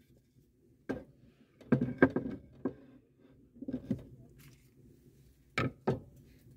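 A wooden cutting board and then a knife are set down on a wooden table, giving a string of separate knocks and clatters. The two sharpest knocks come close together near the end.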